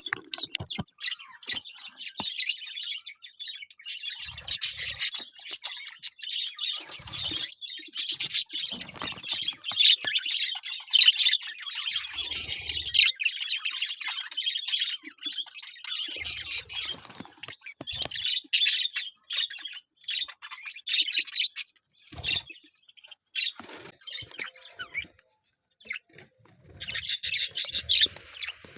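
Birds chirping, with many short high calls overlapping almost without pause and a loud, rapid run of calls near the end.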